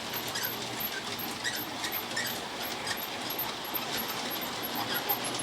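A five-month-old baby making a few faint, short, high squeaky whimpers over a steady background hiss.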